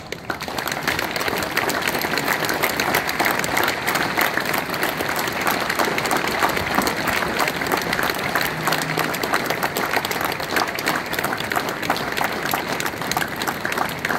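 Crowd of spectators applauding, breaking out suddenly and keeping up steadily.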